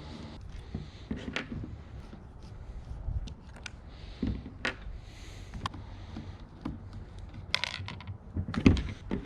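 Scattered light clicks and knocks of hand work on a steering wheel: a Phillips screwdriver and the wheel's plastic trim being handled, with a few louder knocks late on.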